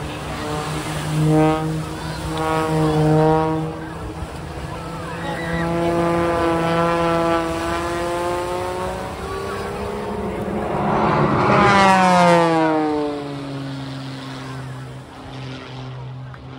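An engine droning with a clear pitch that rises and falls with the throttle, then passes close about eleven seconds in, its pitch sliding down as it goes by.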